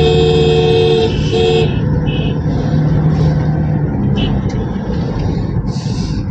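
A vehicle horn held on a steady multi-tone note, breaking briefly about a second in and stopping soon after. Under it and after it, the steady road and engine noise of a moving car, heard from inside the cabin.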